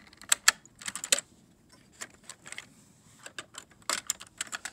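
Plastic Lego parts clicking and clattering as fingers handle a Lego model engine and its clutch mechanism: irregular sharp clicks in two bunches, one in the first second and another near the end.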